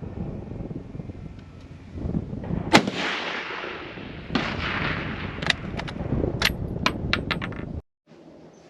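A single rifle shot from a VZ-24 Mauser in 8mm Mauser about three seconds in, over a steady low rumble on a phone microphone, followed by a run of smaller sharp clicks and clacks. The sound cuts off abruptly near the end.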